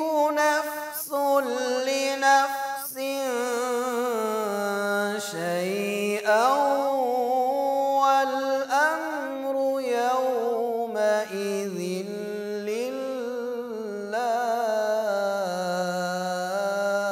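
A man reciting the Quran in the melodic tajweed style, drawing out long held notes that glide and waver up and down in pitch.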